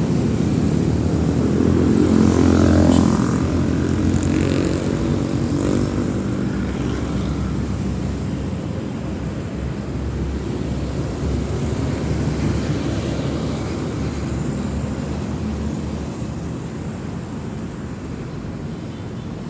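Busy city road traffic, motorbikes and cars driving past. One vehicle passes loudest about two to three seconds in, then the traffic noise continues, slowly getting quieter toward the end.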